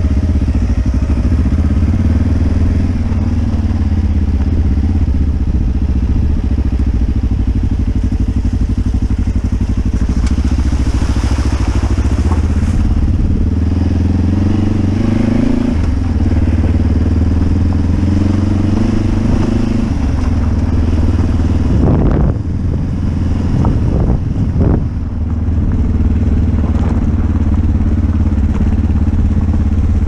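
Adventure motorcycle engine running at riding speed on a gravel track, its pitch climbing as it pulls and dropping back at each gear change. A few short knocks a little past two-thirds of the way in.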